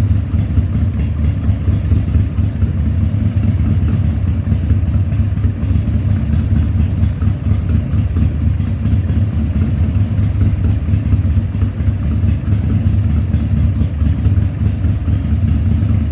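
Harley-Davidson Sportster 1200's air-cooled V-twin idling steadily on its first start after a carburetor rebuild. It runs with a slight cough, which the owner puts down to running a little lean with the air cleaner off.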